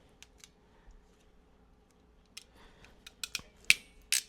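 Sharp clicks and snaps of hand tools working on wires: two faint clicks at first, then a quick, irregular run of louder snaps over the last two seconds.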